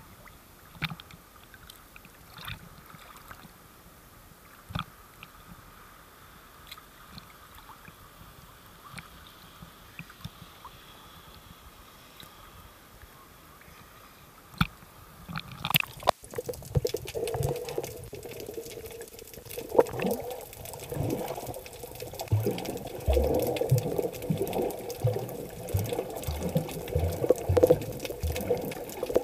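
Small waves lapping and splashing against an action camera held at the sea surface, with scattered little slaps of water. About halfway through, the camera goes under and the sound turns to a muffled underwater rush and gurgle with dull low bumps.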